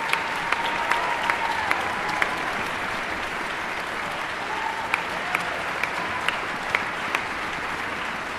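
Audience applauding after an orchestral performance, with a few sharp individual claps close to the microphone standing out from the steady clapping.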